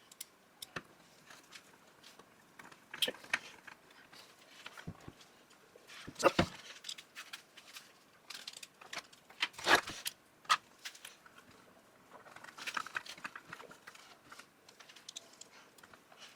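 Hand-assembly noises from chainsaw parts being handled and fitted: scattered clicks, taps and knocks of plastic and metal pieces. Two louder knocks come about six and ten seconds in, and there is a quicker run of small clicks and scrapes a little later.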